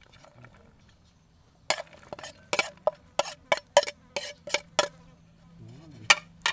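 A metal spoon clinking against a china plate about ten times in quick succession as chopped spring onions are scraped off it into a bowl of soup. About six seconds in there is one louder clink as the plate is set down on other plates.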